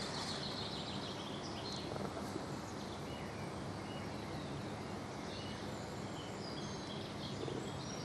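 Steady outdoor background noise with scattered bird chirps.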